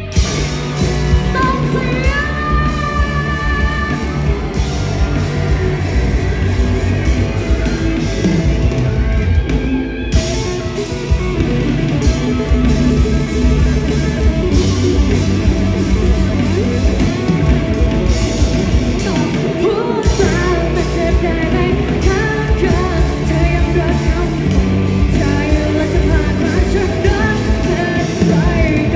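Live rock band playing a song with a lead singer: electric guitars, bass, drums and keyboard under sung vocals.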